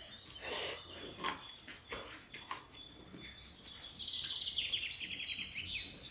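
Soft mouth sounds of someone eating a meal of curry and rice, then a bird singing a fast, rapid trill that steps down in pitch over the second half.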